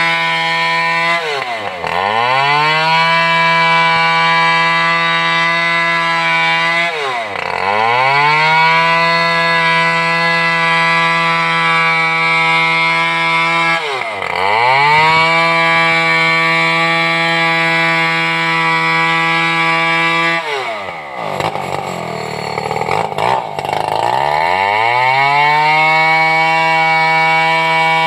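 Stihl two-stroke chainsaw running at full throttle while milling a large sengon log lengthwise. Four times its revs drop sharply and climb straight back, the last dip longer and rougher, near the end of the cut stretch.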